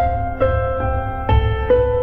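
Slow, sad background music: piano notes struck about every half second over a sustained low bass.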